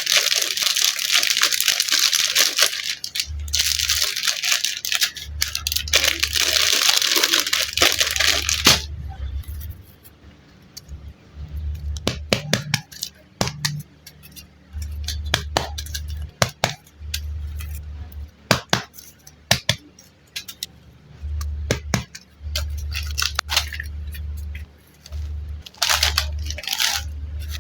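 Plastic packets of super light clay being crinkled and torn open, loud crackling in two long stretches over the first nine seconds. After that come sparse sharp clicks and taps, with a low hum that comes and goes, and two short rustles near the end.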